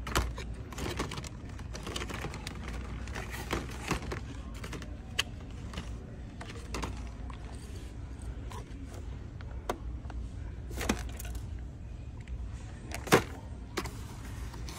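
Handling noise: scattered light clicks and taps of hands and a phone among plastic-windowed toy-car packages, over a steady low store hum. One sharper click comes near the end.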